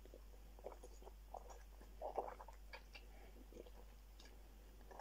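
A person chewing food with the mouth closed: soft, irregular clicks and wet smacks, faint, over a low steady electrical hum.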